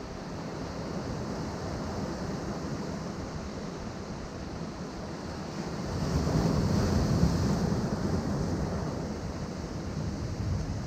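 Ocean waves washing against rocks, a steady rushing surf with one wave swelling louder about six seconds in and fading again.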